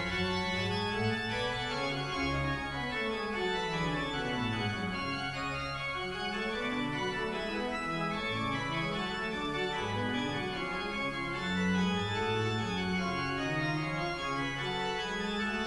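Organ music playing held chords, with a slow descending run of notes a few seconds in.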